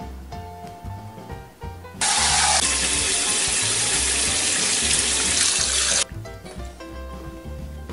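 Kitchen tap running into a stainless steel sink and a steel bowl of salted cucumber slices, rinsing the salt off; the water starts suddenly about two seconds in and cuts off about four seconds later. Background music plays throughout.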